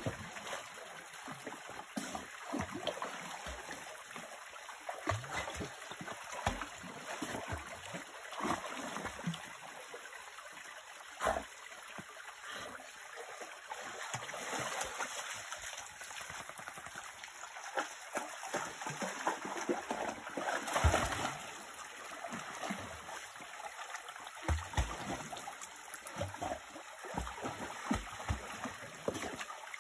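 A dog swimming and wading through a shallow creek, splashing irregularly over the steady running of the stream, with the loudest splash about two-thirds of the way through.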